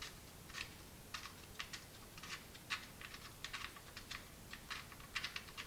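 Faint, irregular light metallic clicks, about three or four a second, as a small 8 mm hold-down stud on an engine's ignition coil pack is unscrewed by hand after being cracked loose with a wrench.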